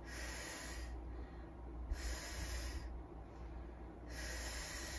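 A woman breathing slowly and deeply in paced exercise breathing, timed to lifting and lowering her hips: three long breaths, each about a second, roughly two seconds apart.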